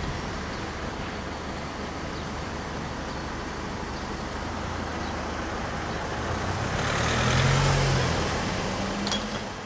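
A car drives over a level crossing close by, its engine and tyres swelling to loudest about seven to eight seconds in, over a steady outdoor traffic rumble. A light click near the end.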